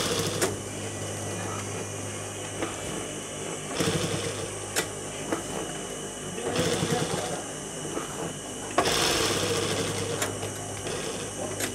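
Electric sewing machine stitching a seam in three short runs, about 4, 6.5 and 9 seconds in, over a steady low hum.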